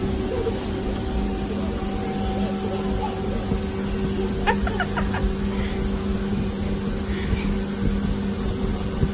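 A steady machine hum over a constant low rumble, with a child's short high-pitched cry about four and a half seconds in.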